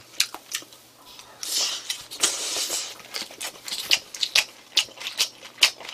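Close-miked chewing of a mouthful of spicy stir-fried pork: a quick, irregular run of wet mouth clicks, with a soft breathy hiss about a second and a half in.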